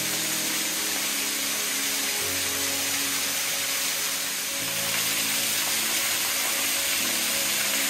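Background music of slow, sustained chords that change every two to three seconds, over a steady rushing hiss of a small waterfall.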